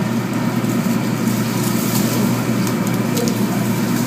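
Steady low rumble and hiss at a hibachi grill, with a few faint clicks.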